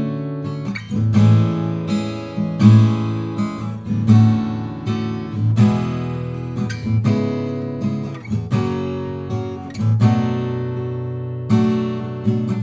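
Sqoe S200-FG OM-body acoustic guitar, with a solid cedar top and black walnut back and sides, played solo: chords are strummed and plucked every second or so and each one rings on.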